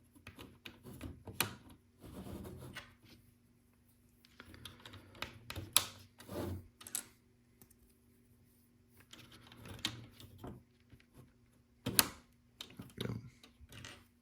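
Plastic LEGO pieces being handled and pressed onto the build: scattered light clicks and taps, several of them sharp, between short stretches of rustling.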